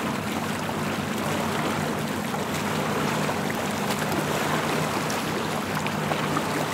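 Lake water lapping against breakwater rocks: a steady wash with a low steady hum underneath.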